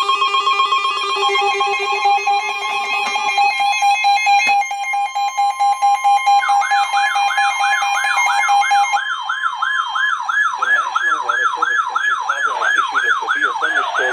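Several weather-radio emergency alert alarms sounding together: layered steady alert tones and buzzy warbling tones. About six seconds in they give way to a fast electronic yelp alarm that rises and falls about three times a second. These are the alarms that announce an incoming severe weather warning.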